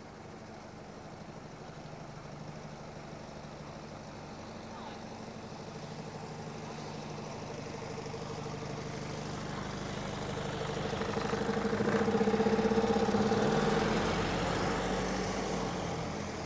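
A motor vehicle's engine approaching and passing close by: a steady hum grows louder over about twelve seconds, is loudest near the end, then fades.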